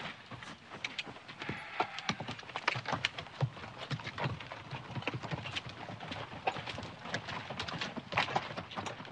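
Hooves of several ridden horses walking, a dense irregular clip-clop of overlapping hoofbeats.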